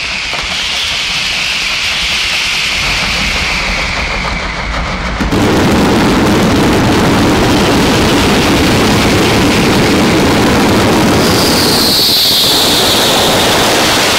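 Fireworks finale: a barrage of firework bangs so dense that they merge into one continuous rumble. It steps up louder about five seconds in.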